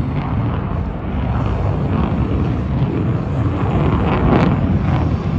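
Aircraft engine noise as a plane flies over: a loud, steady rumble that swells slightly about four seconds in.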